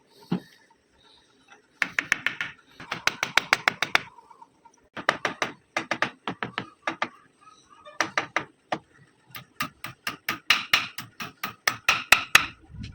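Hammer tapping on wood in quick runs of sharp taps, several a second, broken by short pauses.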